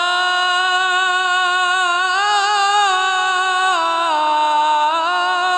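A Quran reciter's voice in melodic tajwid recitation, holding one long note on the word "illa". The note wavers in ornaments in the middle and steps down in pitch about two-thirds of the way in.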